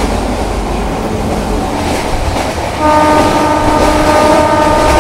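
Meter-gauge train running with a steady rumble of wheels on the track; about three seconds in, the locomotive's horn sounds one long, steady blast, warning a level crossing ahead.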